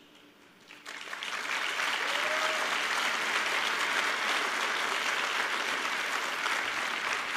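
Large audience applauding, starting about a second in and holding steady.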